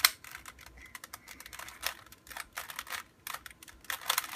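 Plastic Rubik's Cube being turned by hand: a quick, irregular run of clicks as its layers are twisted.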